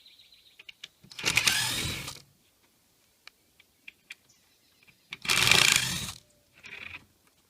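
Cordless drill/driver running in short bursts: two runs of about a second each and a shorter one near the end, with small clicks in between.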